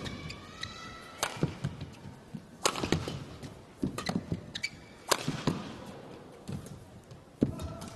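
Badminton rackets striking the shuttlecock in a rally: sharp cracks roughly every one to one and a half seconds, with softer thuds of players' feet on the court between the shots.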